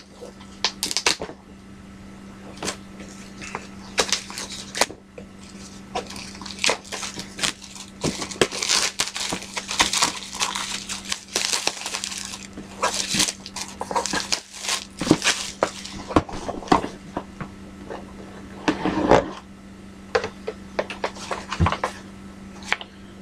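Board game box and its packaging being handled and opened: irregular crinkles, rustles, scrapes and light taps, over a steady low electrical hum.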